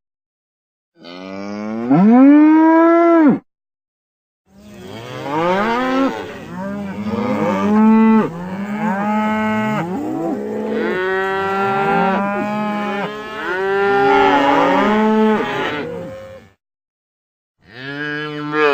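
Cattle mooing: one long moo that rises in pitch, then about twelve seconds of several cows mooing over one another at different pitches, and another moo starting near the end. The calls are separated by short gaps of dead silence.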